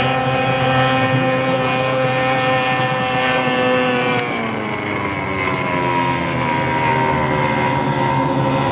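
Outboard motor of a small racing boat running at high revs, a steady high engine note whose pitch drops about four seconds in as the boat passes close by, then holds lower as it pulls away.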